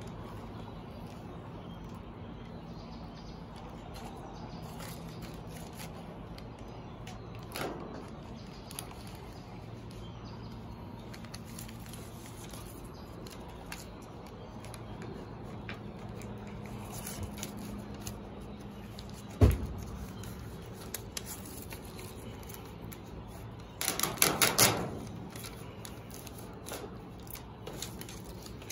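Hand work on a steel shed's roof panel as it is bolted and taped down: scattered small clicks, one sharp knock about two-thirds of the way in, and a quick run of rattling clicks near the end, over a faint low steady hum.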